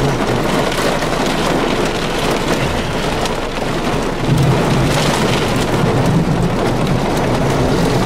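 Heavy rain pelting a vehicle's windshield and body, heard from inside as a dense, steady patter of drops. A low drone comes in about four seconds in.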